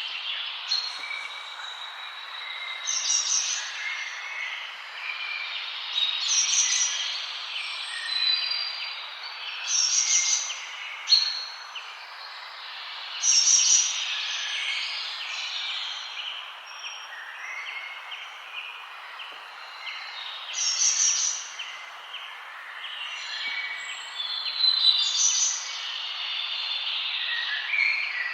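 Several songbirds chirping and trilling over a steady background hiss. The loudest phrases are short, high-pitched bursts of song that come every few seconds.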